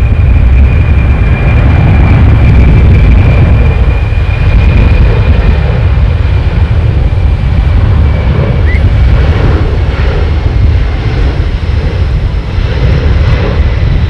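Aircraft flying over: a loud, continuous low rumble with a steady high whine that slowly falls in pitch.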